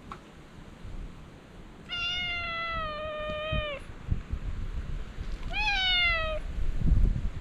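Stray cat meowing twice: a long, drawn-out meow about two seconds in, then a shorter one that rises and falls near the six-second mark.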